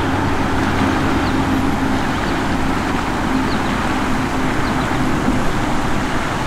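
River water rushing steadily through a shallow, rocky riffle: an even rush with no breaks, with a faint steady low hum underneath.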